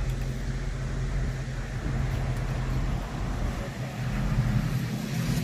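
A vehicle engine idling with a steady low drone that dips a few seconds in and comes back stronger near the end.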